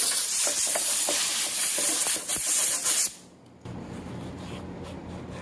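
Compressed-air blow gun giving a steady hiss for about three seconds as it blows dirt off a fuel tank's pump retaining ring, then cutting off suddenly. A few faint clicks follow.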